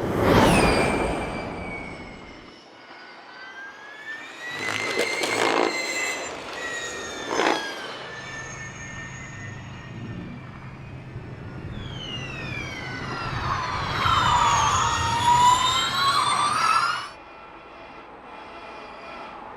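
Formula E electric race cars passing at speed. Each gives a high, multi-toned electric motor and transmission whine that drops in pitch as it goes by. A loud pass comes at the start and two shorter ones follow. Later a longer whine falls and rises in pitch, then cuts off suddenly.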